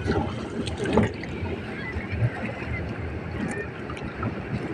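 Wind on the microphone over water noise, with a few short knocks in the first second, the loudest about a second in.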